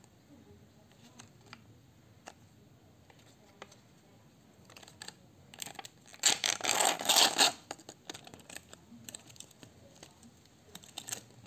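Printed backing being peeled off a plastic blister pack of gummy candy: a loud tearing rip lasting about a second and a half, starting about six seconds in, with light crinkles and clicks of the plastic packaging before and after.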